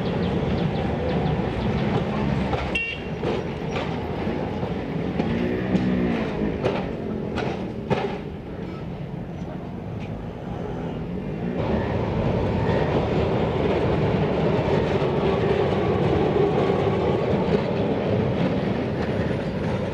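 Kolkata electric tram running on street track, its wheels clicking and clattering over the rails. About eleven seconds in, the sound changes to a louder, steadier rumble.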